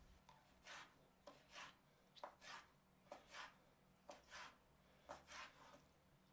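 Kitchen knife slicing squid into small strips on a wooden cutting board. The cuts are faint and soft, about one a second, each a quick double stroke of the blade through the flesh and onto the board.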